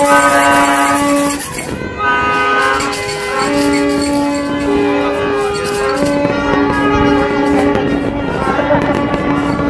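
Many horns sounding together at the New Year: long held notes at several different pitches overlapping and starting and stopping one after another, over a steady background din with faint pops.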